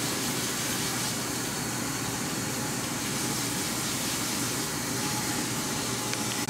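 Water running steadily from a salon shampoo-bowl sprayer as hair is rinsed, a constant hissing spray.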